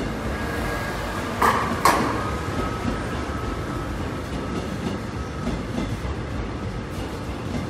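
Korail '신저항' resistance-control electric multiple unit rolling slowly alongside the platform with a steady rumble of wheels and running gear. About a second and a half in come two sharp clanks close together, then a faint high steady squeal for a few seconds.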